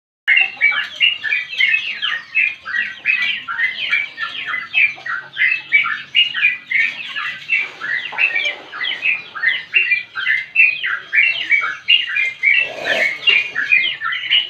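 Yellow-vented bulbul singing a long, unbroken run of rapid chattering notes, several a second.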